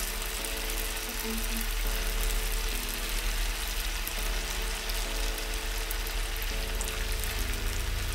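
Batter-coated cauliflower florets deep-frying in a wok of hot oil, sizzling and bubbling steadily. Soft background music plays over it.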